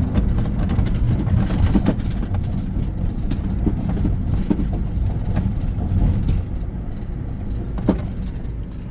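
Steady low rumble of a car's engine and tyres on the road, heard from inside the cabin while driving, with a few light knocks, the sharpest near the end.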